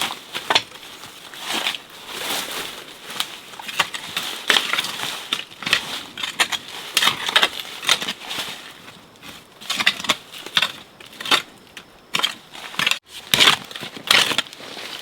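Irregular crunching and crackling, many short noisy crunches in quick uneven succession.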